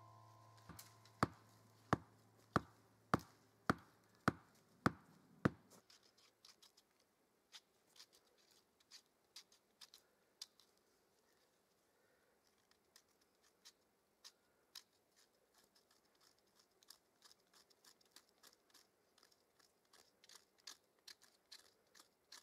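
A knife scraping and shaving birch bark into tinder on a flat stone, in short, faint scratchy strokes that come faster near the end. The first six seconds are taken up by a run of sharp, evenly spaced knocks, the loudest sound here.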